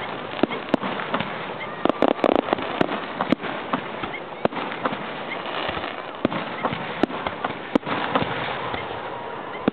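Aerial firework shells going off in an irregular series of sharp bangs, with a dense burst of bangs about two seconds in, over a steady background hiss.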